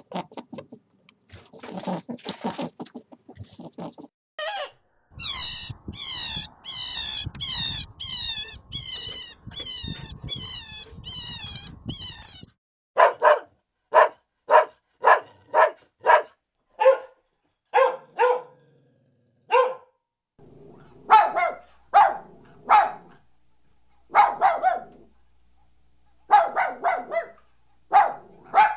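A dog barking repeatedly in short, sharp barks, some single and some in quick clusters, through the second half. Before that comes a steady run of high, squeaky calls, each falling in pitch, and scratchy rustling at the very start.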